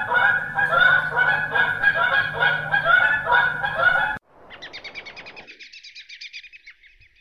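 A flock of geese calling, many honks overlapping, cut off suddenly about four seconds in. A quieter, rapid high-pitched trill follows and runs for about three seconds.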